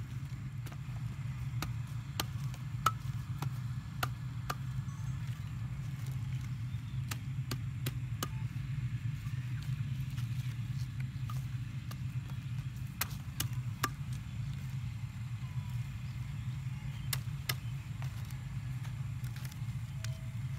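Large knife or cleaver cutting and chopping through green leaves, a dozen or so sharp, irregular chops and snicks, over a steady low hum.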